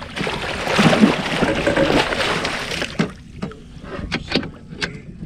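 Water splashing as a northern pike thrashes in a landing net at the side of the boat, for about three seconds. The splashing then stops, leaving a few light knocks.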